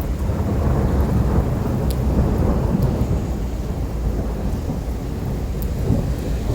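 A long rolling rumble of thunder that swells in at the start and stays loud throughout, over steady rain.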